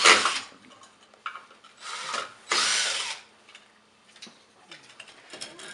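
Cordless drill/driver running in three short bursts, backing screws out of a wooden mantle mounting block on a brick fireplace. The first burst ends about half a second in, and the other two come around two and three seconds.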